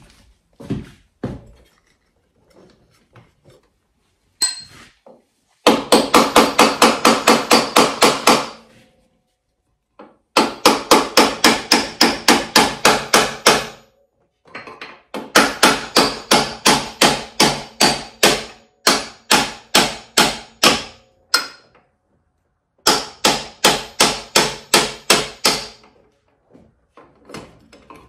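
Claw hammer tapping a steel punch to drive the rotor shaft out of a Timbersled snowbike kit's jackshaft. It comes in four long runs of quick, evenly spaced ringing metal taps, about five a second, with a few single knocks between them.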